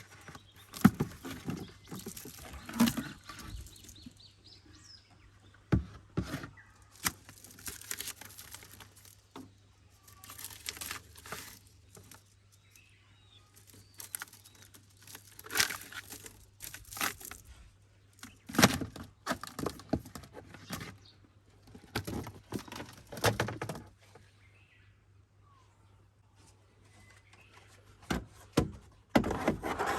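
Scattered knocks, taps and clatter of objects being handled, in bursts with short quiet gaps, over a faint steady low hum.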